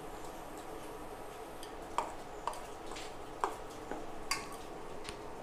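Steel spoon stirring thick gram-flour batter in a stainless steel bowl, clinking against the bowl's side about six times at uneven intervals from about two seconds in.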